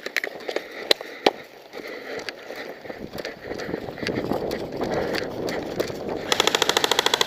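Rustling and scattered clicks of a player moving through the brush. About a second before the end, an airsoft electric gun opens up on full auto in a rapid, even string of shots.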